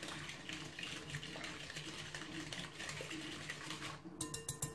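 Wire whisk stirring a liquid mixture in a metal bowl, a steady wet swishing with light scraping. Near the end, a quick series of light ringing taps as the whisk is knocked against a container.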